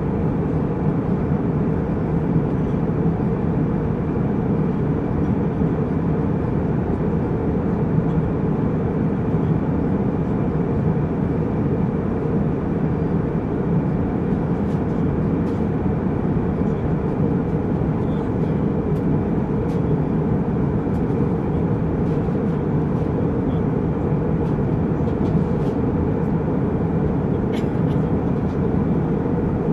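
Jet airliner cabin noise in flight: a steady low rumble with a lighter hiss above it, from the engines and the air rushing past the fuselage. A few faint ticks come in the second half.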